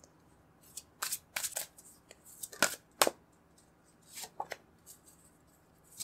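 A deck of tarot cards shuffled by hand: a string of short rustles and snaps, the sharpest about three seconds in, with a card then laid on the table.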